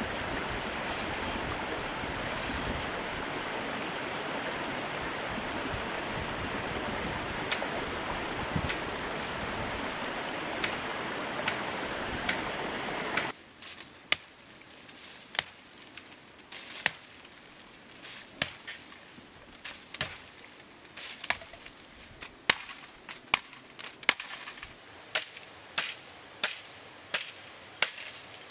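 A steady rush of flowing water, cut off abruptly about halfway through. Then a series of sharp chopping strikes, about one a second, coming faster near the end.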